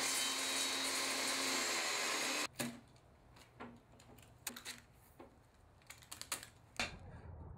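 Table saw running steadily while a plexiglass disc is turned against the blade. The sound cuts off suddenly about two and a half seconds in, and a few light clicks and knocks follow.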